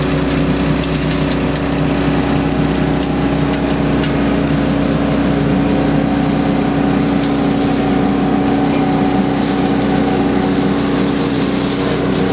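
Koyo Engineering BS2000 truck-mounted vacuum leaf sweeper running at a steady pitch, with scattered sharp ticks over the drone.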